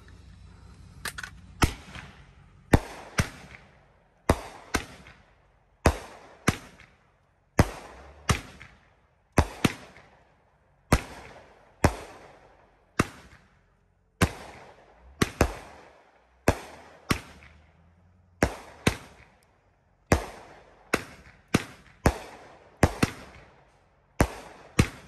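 Phantom Fireworks WiCKED PISSAH 30-shot cake firing: sharp bangs mostly in pairs, about a pair every second and a half, turning into a quicker run of bangs at the very end.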